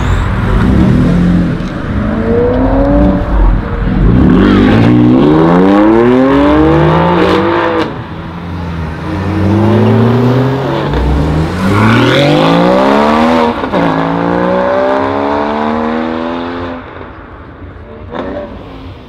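Sports car engines accelerating hard, the revs climbing and dropping back with each upshift several times over. Near the end the sound fades as the cars pull away.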